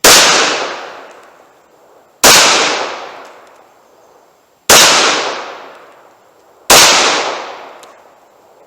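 Four pistol shots from a Glock 41 firing .45 ACP hand loads, spaced about two seconds apart. Each shot rings out and fades over a second or so.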